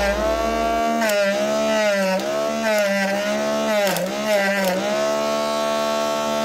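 Small brushed DC motor of a homemade chili blender running with a steady whine, its pitch sagging briefly several times as the blade bogs down on pieces of chili.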